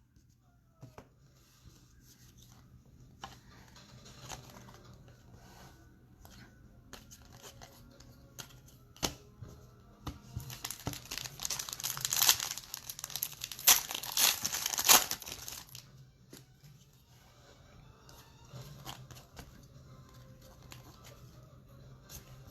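A trading-card pack wrapper torn open and crinkled, loudest for about five seconds around the middle, with light clicks and rustles of cards being handled before and after.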